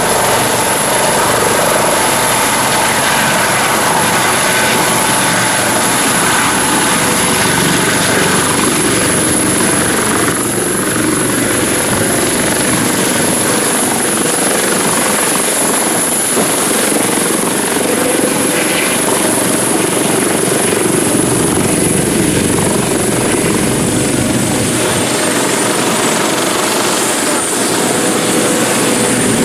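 Twin-turbine Aérospatiale/Eurocopter AS365 Dauphin helicopter hovering low and setting down, then running on the ground with its main rotor turning. The rotor and turbine noise is loud and steady, with a high turbine whine that dips slightly near the end.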